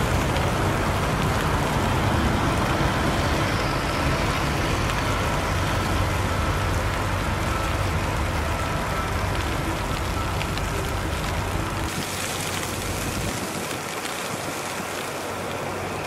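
Steady city traffic noise on snowy streets: a low rumble of vehicles with a constant hiss of tyres. About twelve seconds in the rumble drops away and the hiss turns brighter.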